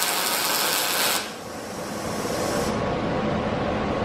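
MIG welding arc from a Vulcan OmniPro 220 welder on steel plate, a loud dense crackle. The arc cuts off about a second in, and a quieter steady noise carries on after it.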